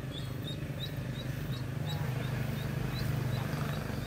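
A live duckling used as fishing bait peeping: short, high cheeps repeating about three times a second, over a steady low hum.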